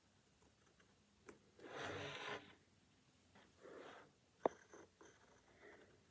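Pen scratching on paper in short drawing strokes, the longest about two seconds in and another about four seconds in, with a sharp click about four and a half seconds in.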